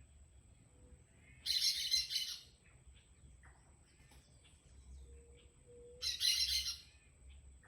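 Two harsh, chattering bird calls, each about a second long and some four seconds apart, with faint softer chirps between them and a thin steady high whine throughout.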